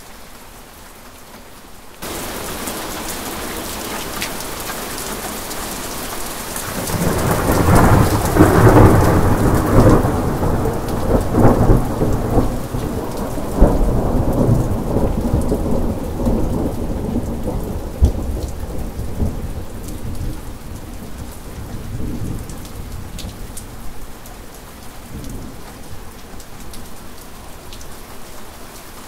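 Steady rain that suddenly gets louder about two seconds in, then a long roll of thunder: it builds a quarter of the way in, is loudest with a few sharp cracks over the next several seconds, and slowly rumbles away toward the end.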